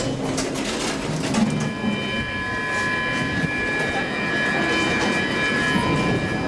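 Metro train running through the station: a steady rumbling clatter. From about two seconds in, a steady high squeal of several tones sits above it. A knock comes at the very start.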